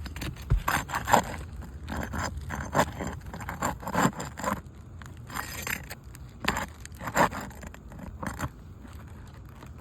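Metal tool scraping and clicking against roof shingles as the nails holding a damaged shingle are pried out, in irregular strokes with a few sharper knocks.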